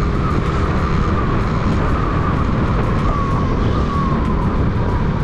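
Suzuki Smash 115 motorcycle's small single-cylinder four-stroke engine running steadily at road speed, with heavy wind rushing over the rider's microphone and a thin whine that drifts slightly lower.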